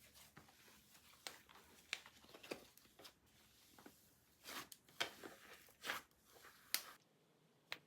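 Icee slime being handled, giving irregular crackling pops and crunches, a few of them louder than the rest.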